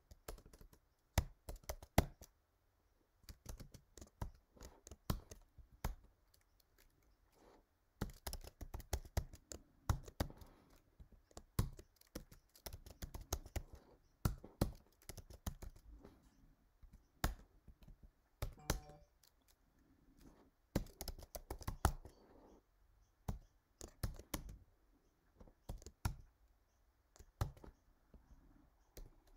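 Typing on a computer keyboard: irregular runs of key clicks broken by short pauses.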